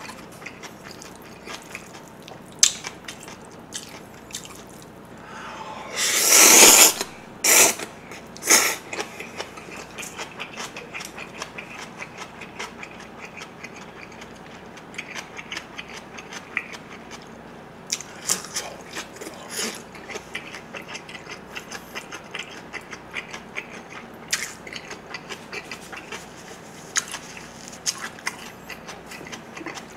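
Close-miked eating sounds from cold yeolmu bibim noodles and fried dumplings: steady wet chewing with many small clicks and crunches, a loud slurp of noodles about six seconds in, then two sharp clicks.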